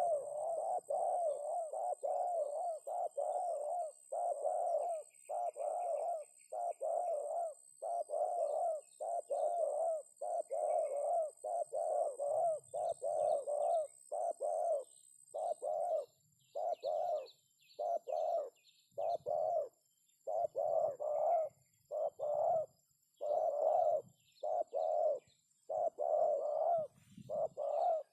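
Spotted dove cooing: a long run of short, low coos, roughly one to two a second with brief pauses. Faint high chirps from small birds can be heard behind it for a few seconds past the middle.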